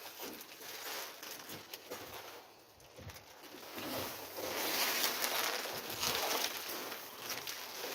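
Rummaging through a dumpster of bagged trash and discarded groceries: rustling and crinkling of plastic bags and packaging, with light irregular knocks. It grows louder about halfway through.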